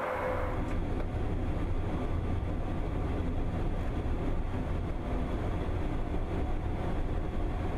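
Airbus A400M's four-engine turboprop drone: a steady low rumble with faint, even engine tones above it.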